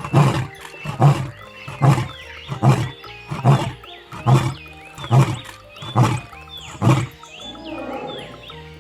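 Lion roaring: a run of nine deep grunting calls, about one a second, that stops about seven seconds in.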